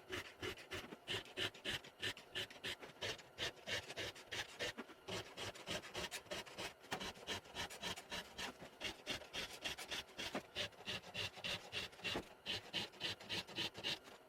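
Hand file sharpening the cutters of a chainsaw chain still mounted on the bar, in a steady run of short rasping strokes, about three a second.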